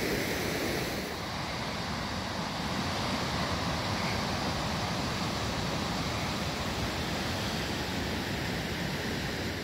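Spokane River whitewater rapids rushing: a steady, even rush of fast water.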